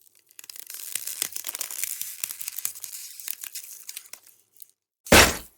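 Ice cracking: a dense run of crackles and snaps for about four seconds, then one loud, sharp break shortly before the end.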